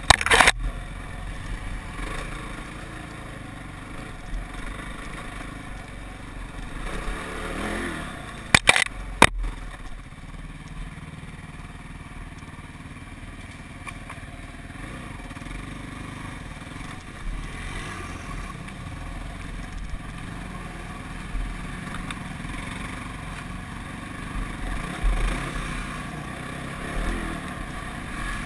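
ATV engine running steadily while riding over rough, leaf-covered ground, with clattering. A few sharp knocks come just after the start and again about nine seconds in.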